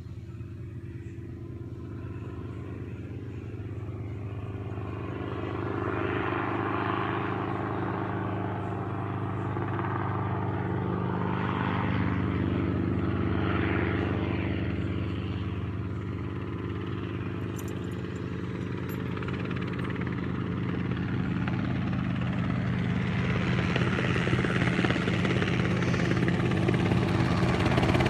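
Helicopter approaching to land: a steady low hum of engine and rotor with a rushing, whooshing noise that swells and fades, growing louder toward the end.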